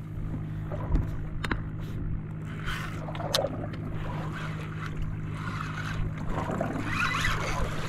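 Boat's Suzuki 140 outboard idling with a steady low hum, with a few light knocks over it.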